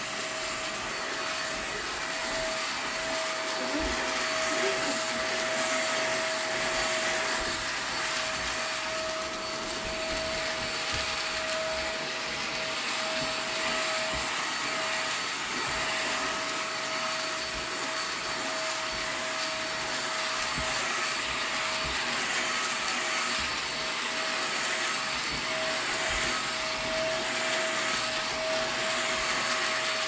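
iwoly V600 corded stick vacuum running steadily, its small brush attachment working over sofa upholstery: an even rush of suction air with a steady motor whine.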